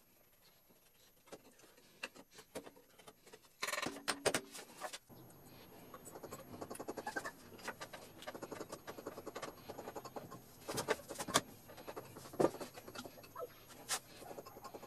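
Clicks, taps and small scrapes from hands fitting a black metal bracket onto the end of a wooden baby-gate rail, with a louder squeaky scrape lasting about a second about four seconds in.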